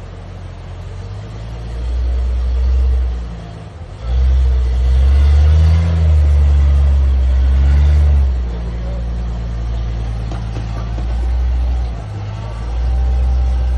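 Off-road Jeep engine running under load on a rocky trail, revved up and back down twice about halfway through.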